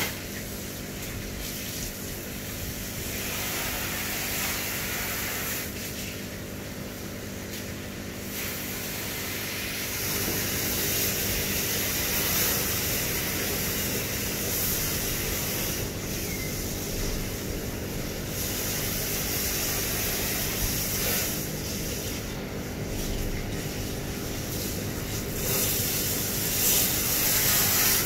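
Water running and splashing as aquarium filter media is rinsed by hand, the hiss swelling and easing, over a steady low hum.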